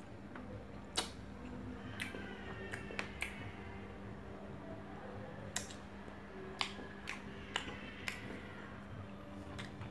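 Close-up eating sounds as rice and chicken are eaten by hand: about ten sharp wet clicks and smacks at uneven intervals, over a steady low hum.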